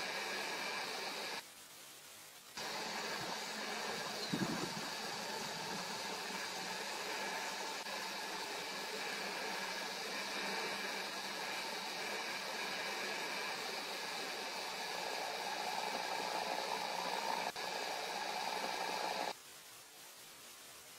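Steady hissing noise with a faint low hum, cutting off and back in abruptly near the start and stopping abruptly near the end. There is one short low knock about four and a half seconds in.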